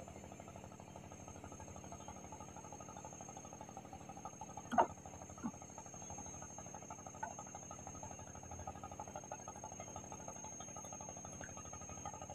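Steady, rapidly pulsing chorus of insects from the riverbank vegetation, with a thin steady high whine above it. A short knock sounds about five seconds in, followed by a softer one.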